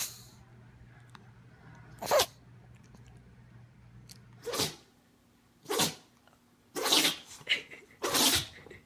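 A pet sneezing again and again: about five sharp sneezes a second or so apart, coming closer together near the end.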